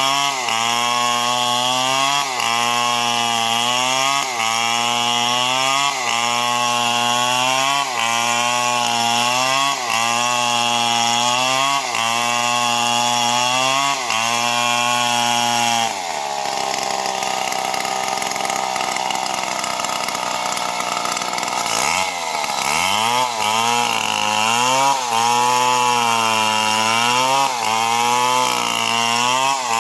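Big two-stroke STIHL MS 070 chainsaw cutting wood, its engine pitch dipping and recovering about every two seconds as it works through the cut. About halfway through the sound thins out for several seconds. Then the pitch drops sharply and climbs back, and the regular cutting pattern resumes.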